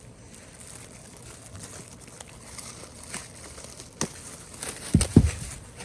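Packaging crinkling and rustling as parts are taken out of a cardboard box, with a few light clicks and a couple of heavy thumps about five seconds in.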